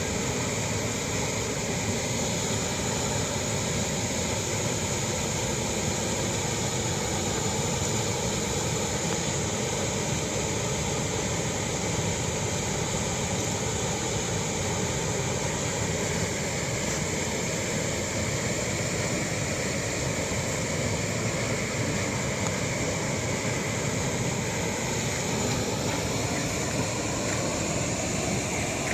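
Steady roar of a waterfall, its falling water making an even, unbroken rush.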